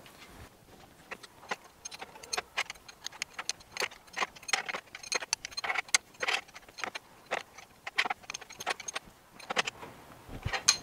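Irregular metallic clicks and taps, several a second, as a spanner turns the oil drain plug back into the underside of a Colchester Student lathe's threading gearbox, with one sharper click near the end.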